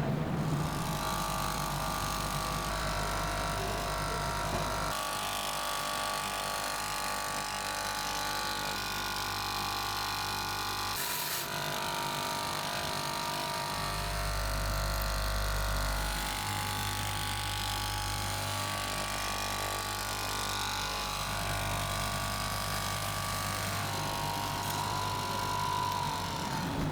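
Steady hum of running factory machinery, several even tones at once, changing abruptly every few seconds.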